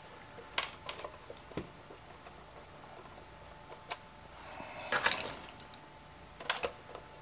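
Handling noise from a screwdriver and hands working at the perforated back panel of an old Silvertone tube radio: scattered light clicks and knocks, with a short scraping rustle about five seconds in.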